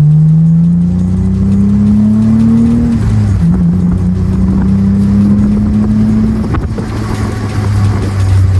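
Mitsubishi Eclipse with an Invidia N1 cat-back exhaust accelerating. The engine note climbs for about three seconds, drops sharply at a gear change, holds steady, then eases off near the end.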